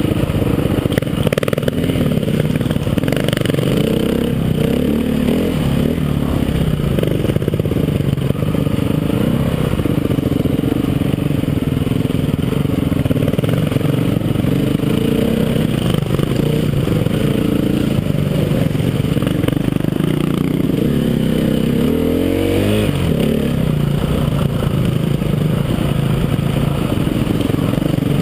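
Dirt bike engine running under way on a rough trail, its pitch rising and falling as the throttle opens and closes, with a sharp rev-up and drop about three-quarters of the way through.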